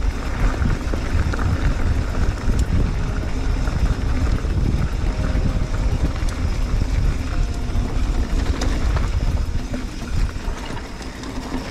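Mountain bike riding down a dirt singletrack: steady wind buffeting the microphone over the tyres on the trail, with a few sharp clicks and rattles from the bike.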